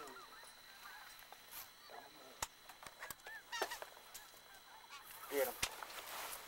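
A flock of geese honking overhead, many short calls that grow louder and more frequent near the end, with a couple of sharp clicks in between.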